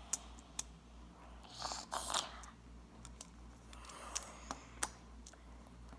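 Scattered light clicks and taps of a plastic fidget spinner being handled on a stone countertop, with a couple of brief rustles about two and four seconds in.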